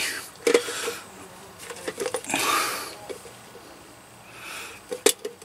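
Small clicks and taps of fingers working a plastic wiring connector off a vehicle's EVAP vent valve solenoid, with a heavy breath about two seconds in and a fainter one near the end.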